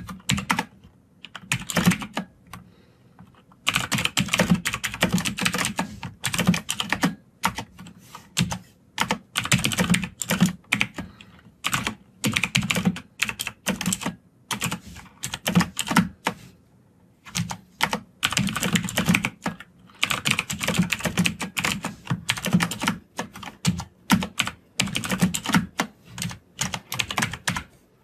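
Fast typing on a computer keyboard in runs of rapid key clicks, broken by a few short pauses.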